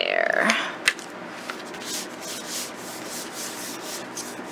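Paper rubbing and sliding as hands press and smooth a patterned paper strip over an envelope on a table: a short squeak at the start and a sharp tap about a second in, then a run of soft swishes.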